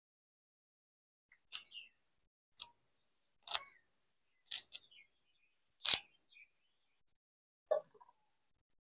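Moringa stems and leaf stalks snapping as they are stripped by hand: about seven sharp snaps, irregularly spaced about a second apart.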